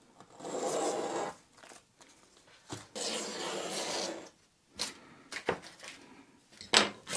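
Utility knife blade scraping through masking tape along the edge of teak boards in two drawn strokes of about a second each, followed by a few short clicks and taps as the cut-off tape is handled.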